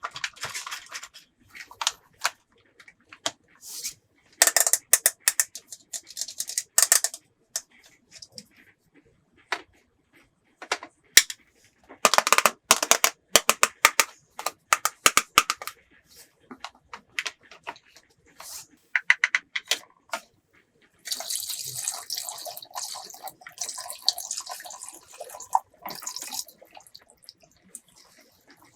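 Hard plastic toy pieces clicking and clattering as they are handled, in irregular clusters of sharp clicks. About two-thirds of the way through, a steady hiss or rustle runs for about five seconds.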